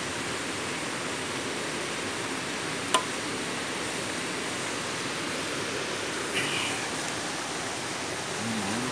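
Shrimp frying in hot oil in a wok, a steady sizzle as a metal spatula stirs them, with one sharp click about three seconds in.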